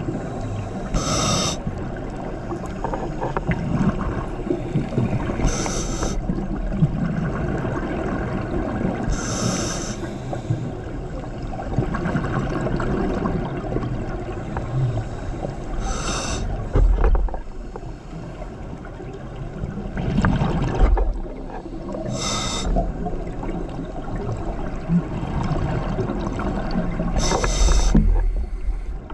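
A scuba diver breathing through a regulator, heard underwater: six hissing bursts of exhaled bubbles a few seconds apart, over a steady low rumble.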